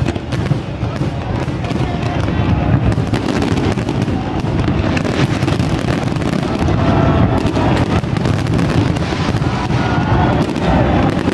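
A dense fireworks barrage of many overlapping bangs and crackles in close succession, loud and without a break.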